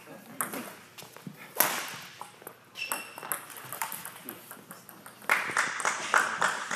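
Badminton rackets striking a shuttlecock in a rally: a run of sharp pinging hits at uneven spacing, the loudest about a second and a half in, with a short squeak near three seconds in. Voices and a thicker cluster of hits join in during the last second and a half.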